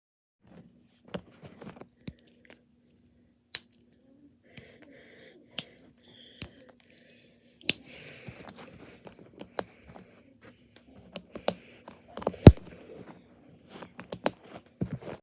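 Plastic Mathlink cubes being handled and snapped together: a string of irregular sharp clicks and small rattles, the loudest about twelve seconds in.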